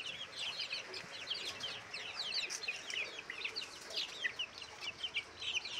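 A flock of young Sonali chickens, about a month old, peeping together: many short, high, falling chirps overlapping without a break.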